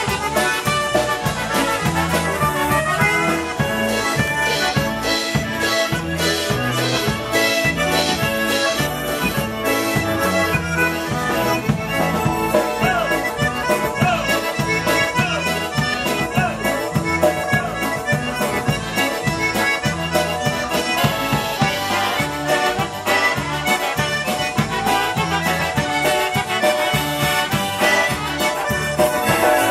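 Live polka band playing a polka: piano accordion and concertina carry the tune over a steady, even beat of bass and drums.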